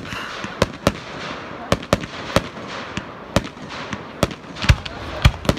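Aerial fireworks shells bursting in quick, irregular succession: a dozen or so sharp bangs over a steady crackle.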